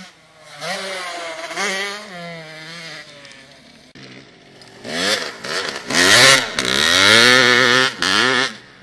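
Motocross bike engine revving, its pitch climbing and dropping again and again as the throttle is worked. The engine is moderate at first, then much louder through the second half as the bike powers hard through a corner.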